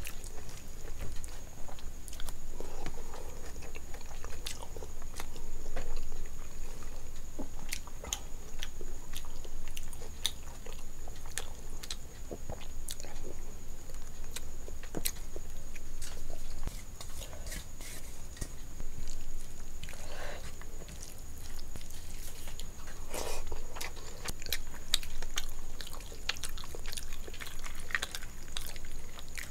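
Close-miked wet chewing, biting and lip-smacking of a person eating rice and fish head curry with their hands, full of small sharp mouth clicks. A faint steady high whine runs underneath.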